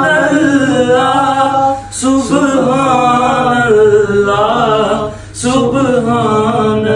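Men singing a Punjabi naat a cappella, with long, wavering held notes. The singing breaks briefly for breath about two seconds in and again about five seconds in.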